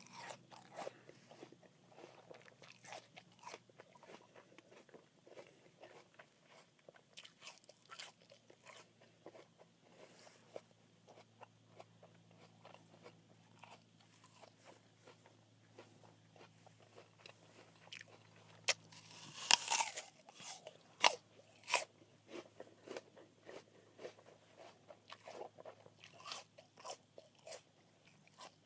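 A crisp apple being bitten and chewed: a run of wet, crackly crunches, with one big bite about two-thirds of the way through and a few loud crunches after it.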